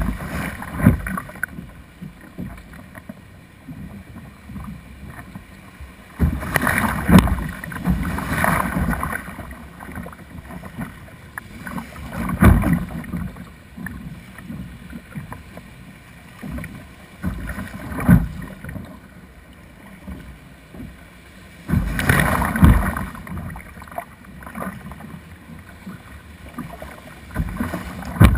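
Surf breaking and water splashing against a plastic kayak's bow as it pushes out through the breakers. Louder surges of rushing water come every few seconds, about six times, as waves hit the bow, over a steady wash of surf.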